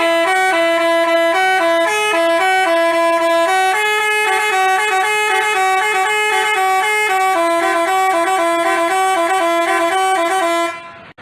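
Telolet basuri multi-tone horn playing a quick melody of short, stepping notes. It cuts off suddenly near the end.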